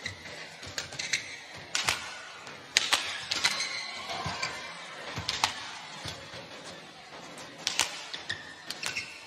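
Badminton rally: sharp racket strikes on the shuttlecock, roughly once a second, with short high squeaks of shoes on the court.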